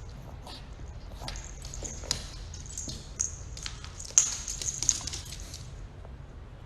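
Cats scuffling: an irregular run of sharp taps and knocks with scratchy high noise. The loudest knock comes about four seconds in.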